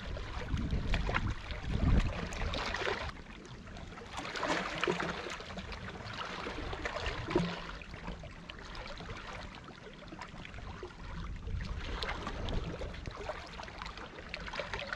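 Shallow sea water splashing and lapping at a rocky shore as a person wades in and swims, with many small sharp splashes. A low wind rumble on the microphone in the first few seconds.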